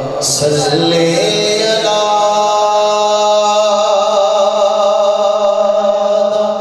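A man's voice chanting durood (blessings on the Prophet) in a slow melodic line through a microphone, unaccompanied; about two seconds in, it settles on one long held note.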